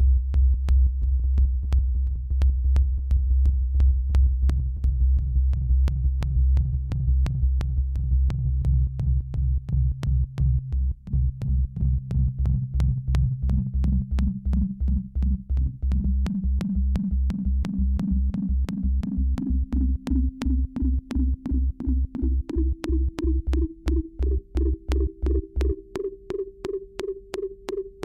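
Electronic music with a fast, regular synth pulse and a tone that climbs steadily in pitch. Near the end the deep bass drops out.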